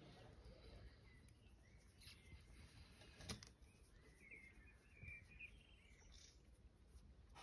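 Near silence with faint bird chirps in the background, in two short spells, and a single soft click a little over three seconds in.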